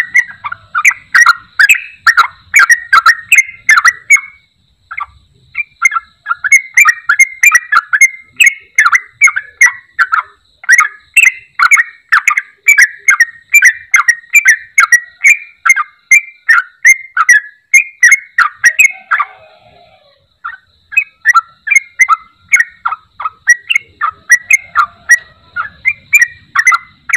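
Yellow-vented bulbul (trucuk) singing loudly: a fast stream of short bubbly whistled notes, several a second, with brief pauses about five seconds in and again near twenty seconds.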